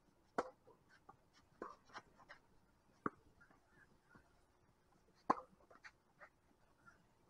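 Tennis ball being struck by rackets in a rally: sharp, separate pops, the loudest about half a second in and about five seconds in, with another about three seconds in and fainter clicks between.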